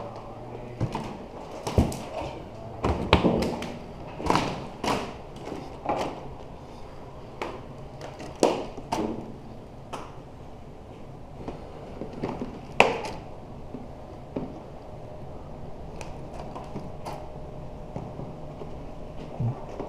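Irregular knocks, clunks and rattles of equipment being handled and moved about, some sharp, the loudest about two, three and thirteen seconds in.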